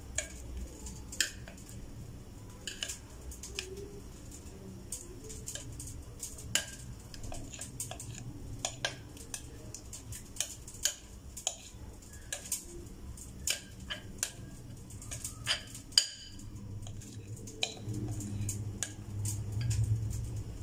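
Metal spoon scraping and clinking against a glass mixing bowl as cake batter is scooped out into a steel pan: many light, irregular clinks, with one sharper clink about 16 seconds in.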